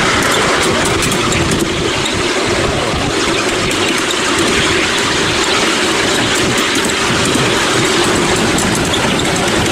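Miniature railway train running along its track, heard from a riding car: a steady rumble of small steel wheels on the rails, behind a battery-electric locomotive with no engine note.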